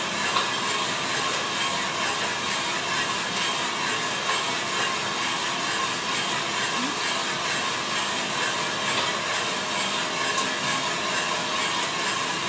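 Small drum coffee roaster running mid-roast: a steady rushing noise from its fan, burner and turning drum, with a few faint clicks.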